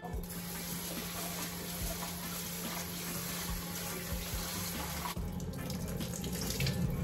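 Kitchen tap running into a metal pot of rice as the rice is rinsed, a steady flow that changes about five seconds in as the rinse water is tipped out of the pot.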